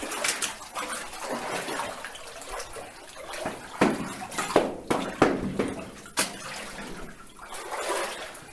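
Footsteps splashing through shallow water on a tunnel floor, in an irregular run of splashes with several louder ones in the middle.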